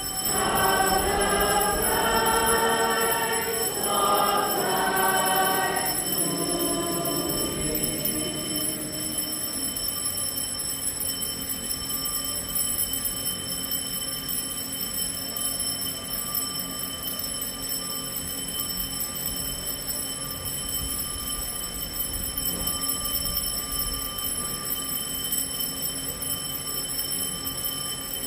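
Voices singing a hymn that fades out about six seconds in. Then only room tone with a steady high electrical whine.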